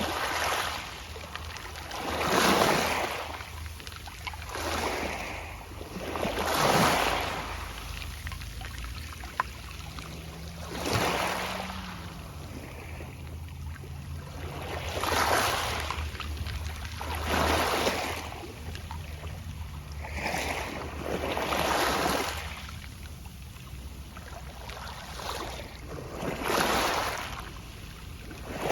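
Small sea waves washing onto a pebble beach and drawing back, the pebbles rustling in the water. The washes swell and fade one after another, every two to four seconds.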